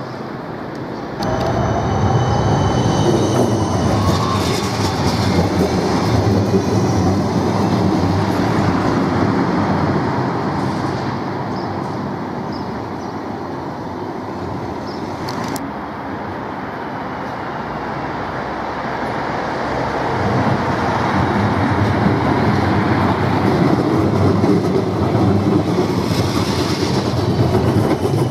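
Siemens Combino Plus low-floor trams running on street track: a steady rumble of wheels on rail, with high thin whining tones for a few seconds near the start. The sound eases off in the middle, then grows loud again as a tram comes up and passes close by near the end.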